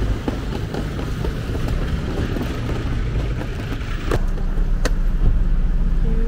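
Street traffic: a steady low rumble of passing cars, trucks and motorbikes, with two sharp clicks about four and five seconds in.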